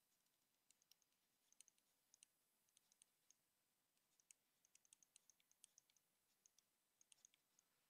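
Near silence with faint, irregular clicks of a stylus tip tapping a tablet screen during handwriting.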